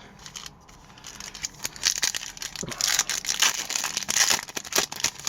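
Plastic-foil wrapper of a hockey card pack crinkling and tearing as it is opened and handled, with many quick crackles from about a second in.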